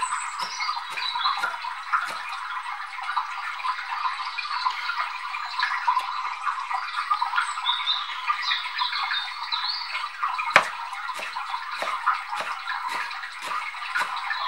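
Chef's knife finely chopping wild garlic leaves on a wooden cutting board: quick chops at first, a pause of several seconds, then steady chopping at about two strokes a second, over a steady background hiss.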